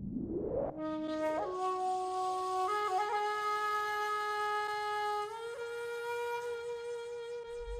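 Intro music: a rising swoosh fades out. A reedy, wind-instrument-like tone then holds long notes, stepping up in pitch three times, and a second rising swoosh starts near the end.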